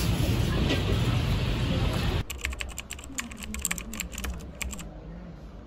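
Steady loud noise that cuts off abruptly about two seconds in, followed by a quick, irregular run of light clicks lasting about two and a half seconds.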